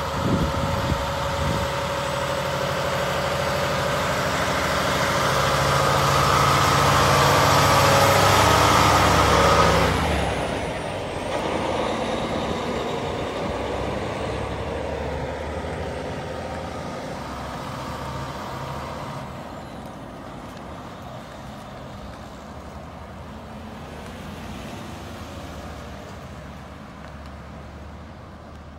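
Diesel engine of a Peterbilt heavy-haul semi truck pulling a lowboy trailer loaded with a dozer: it grows louder as the rig passes, is loudest about ten seconds in, then drops off and fades steadily as the truck drives away.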